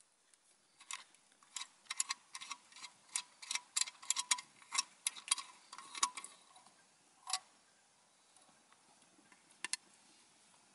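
Wood fire crackling inside a small portable steel stove: irregular sharp pops and snaps, several a second, that thin out after about seven seconds.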